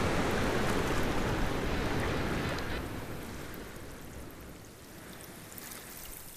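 Rushing sea water and surf, a steady wash that fades to a much quieter hiss about three seconds in.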